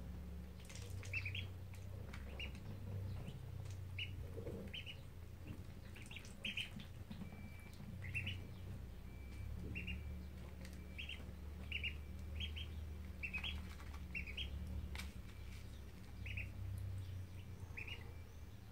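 Ducklings peeping: short rising chirps, about twenty of them at irregular intervals, over a low steady hum, with a few sharp clicks.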